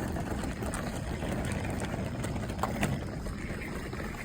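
Suitcase wheels rolling over the ground: a steady rumble with a few faint clicks. The worn rubber tread of one wheel has just been wrapped in adhesive tape to stop its squeak.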